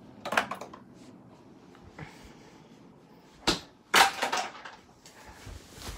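Sharp household clattering knocks: a short clatter about half a second in, then a sharp knock and a louder, rattling clatter around three and a half and four seconds in.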